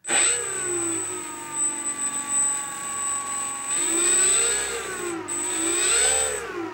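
Electric RC model plane's motor and propeller running up on the bench: a pitched whir that starts suddenly, settles steady, then rises and falls twice as the throttle is opened and closed, before winding down near the end. A steady high whine sits above it the whole time.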